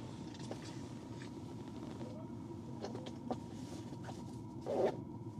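Steady low rumble with a faint constant tone above it, a few soft clicks, and one short, muffled louder sound near the end.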